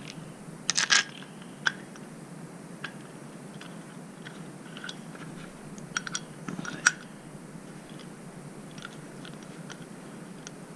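Small parts being handled: scattered clicks and light clinks of screws, washers and a bracket. The loudest cluster comes about a second in and another around six to seven seconds.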